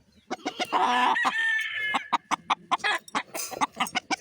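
Roosters and chickens: one rooster crows about a second in, its call rising and then held, amid steady clucking and short sharp calls from the flock.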